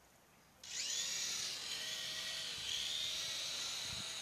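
Small electric motor and rotor of an old, broken battery-powered toy helicopter starting up suddenly about half a second in: a high whine that rises in pitch, then holds steady, with a dull bump near the end.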